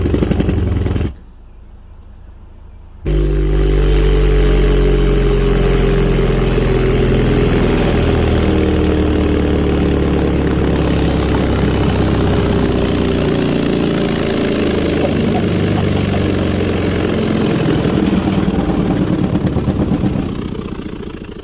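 Sundown Audio XV3 12-inch subwoofer, free-air on a high-power amplifier, driven with a low test tone: a loud, steady low drone full of overtones as the cone is pushed to its excursion limits. It cuts out about a second in, comes back about two seconds later, and fades near the end.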